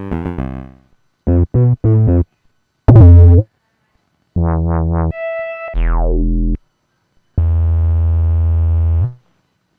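Teenage Engineering OP-1 synthesizer played in short demo phrases, each on a different preset: a decaying chord, three short stabs, a loud wavering note, three quick notes, and a steep falling pitch glide. It ends on a long held, bass-heavy chord that cuts off about a second before the end.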